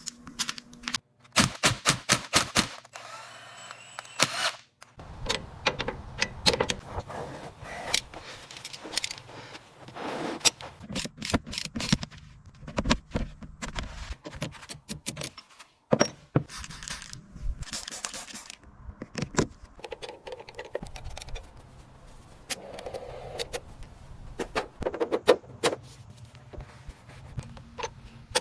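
Workshop sounds of car restoration work: rapid clicks, taps and knocks of hand tools on metal, in short clips with abrupt cuts between them.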